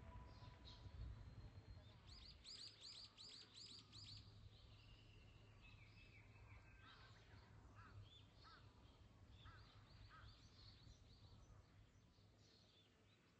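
Faint birdsong: a quick run of about seven high chirps a couple of seconds in, then scattered lower calls, over a low steady hum.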